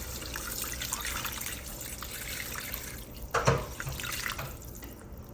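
Bone broth being poured into a cooking pot, a steady liquid pour and trickle that thins out after about three seconds, with one brief louder sound about three and a half seconds in.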